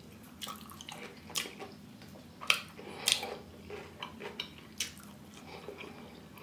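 A person chewing food with wet mouth sounds: a run of irregular, sharp little smacks and clicks, several a second at times, with quieter squishy chewing between.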